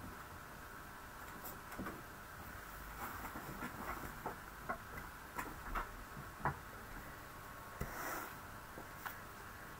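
Faint, scattered light taps and clicks of cardstock pieces being set down and shifted by hand on a wooden desk, with a brief soft paper rustle about eight seconds in.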